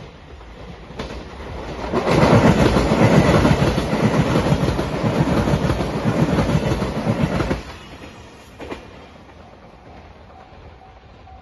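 JR Shikoku 8000 series electric limited express train passing close by at speed, its wheels rumbling on the rails. The sound comes up about two seconds in and stops abruptly a little over five seconds later.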